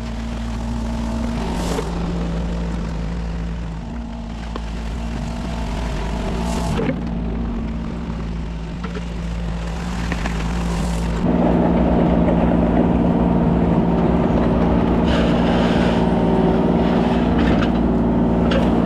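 Kubota 33 mini excavator's diesel engine running steadily, with a few sharp knocks. About eleven seconds in it gets louder and fuller and holds there.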